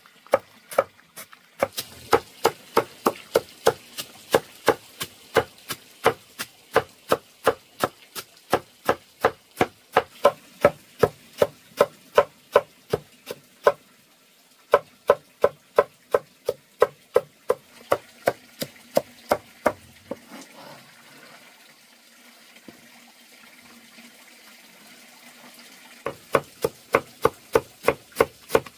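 A machete chopping a stack of banana-stem slices on a wooden block: fast, even, sharp knocks about three a second. The chopping stops for about five seconds past the two-thirds mark, then picks up again near the end.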